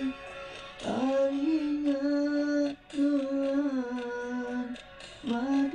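A woman singing a slow melody in long held notes, pausing briefly between phrases.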